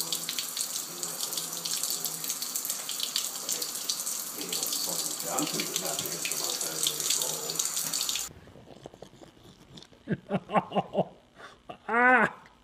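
Kitchen faucet running, its stream splashing steadily into the sink, cut off abruptly about eight seconds in. A few short voiced sounds follow, then a loud rising-and-falling call near the end.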